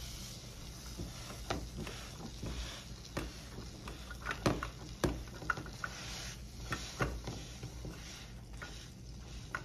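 Spatula scraping and tapping against a frying pan as grilled cheese sandwiches are turned, a scattering of sharp clicks and scrapes.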